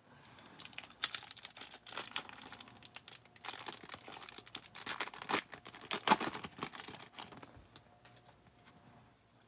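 Foil wrapper of a 1991 Fleer Ultra baseball card pack crinkling and tearing as it is opened by hand, a run of irregular crackles that dies down after about seven seconds.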